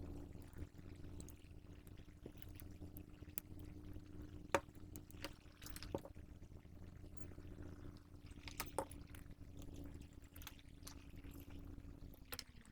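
Faint clicks and taps of hand soldering work as a replacement glass fuse is soldered onto a power supply circuit board, over a steady low hum that fades out near the end.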